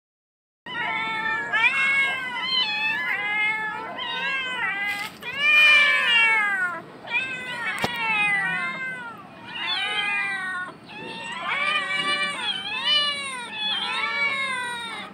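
Several young cats meowing insistently, one call after another with some calls overlapping, starting about a second in.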